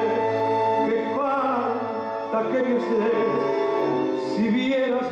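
Tango song: a singer's voice with vibrato over instrumental accompaniment, playing steadily.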